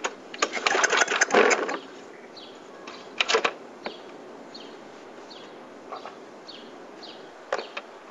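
Murray lawn mower's cold engine being cranked, a loud clattering burst for about the first second and a half that does not catch, then two shorter clicking bursts, one a few seconds in and one near the end. A faint high chirp repeats about twice a second underneath.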